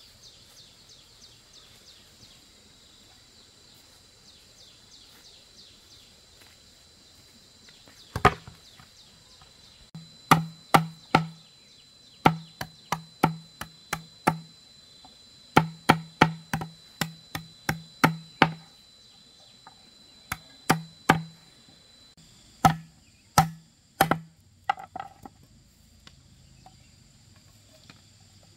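Machete chopping on thin sticks against a hollow bamboo tube. About eight seconds in, sharp strikes begin in quick runs of two to five, each with a short hollow knock from the bamboo, and stop a few seconds before the end. Insects trill steadily throughout.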